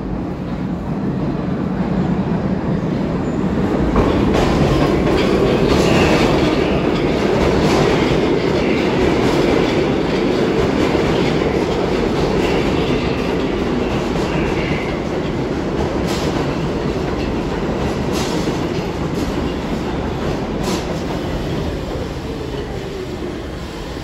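New York City Subway train running on the track: a steady rumble of wheels on rail that builds over the first few seconds and slowly fades, with faint wheel squeal and a few sharp clicks over rail joints in the second half.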